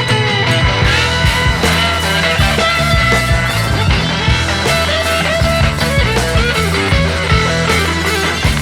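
Background music: a rock track with electric guitar and a steady beat.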